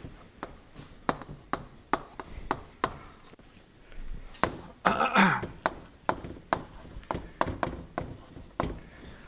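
Chalk tapping and scraping on a chalkboard while writing, a short sharp click with each stroke, about one or two a second. A brief louder noise comes about five seconds in.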